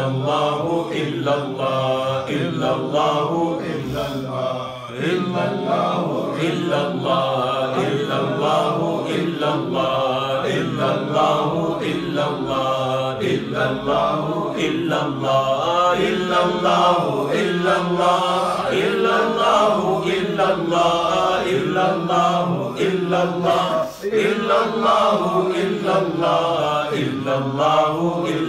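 Islamic devotional chanting in men's voices: a continuous, melodic line of drawn-out sung phrases.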